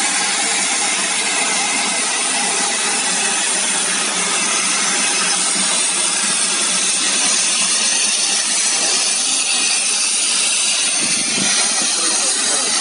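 Steam hissing steadily from a standing Class B1A steam locomotive, No. 251.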